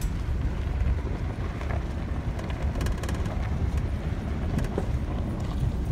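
Car driving along, heard from inside: a steady low rumble of engine and tyre noise with wind on the microphone, and a few light knocks and rattles now and then.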